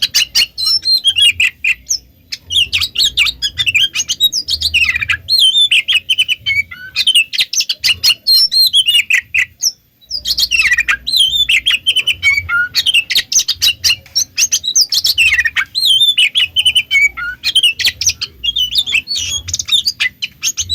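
Oriental magpie-robin (kacer) singing a fast, unbroken stream of chirps, trills and whistles in the frenzied 'konslet' style of an excited, fired-up bird, with a brief pause about halfway through.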